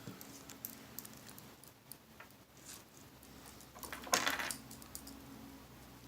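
Scissors snipping and clicking while cutting into a homemade balloon stress ball, with small sharp clicks throughout and one louder, scratchy burst about four seconds in.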